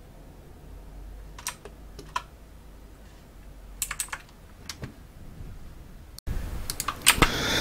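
A few scattered clicks of a computer keyboard and mouse over a faint background hum, with the background noise rising for the last second or so.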